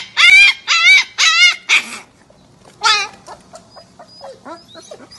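Husky puppy yelping: four loud, wavering yelps in quick succession, another about three seconds in, then softer short whines.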